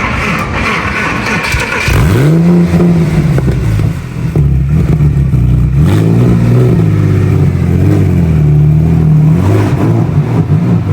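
Porsche 911 Carrera 2's 3.6-litre naturally aspirated flat-six revving loudly: the note climbs sharply about two seconds in and holds, dips briefly, then climbs again and holds high before falling off near the end.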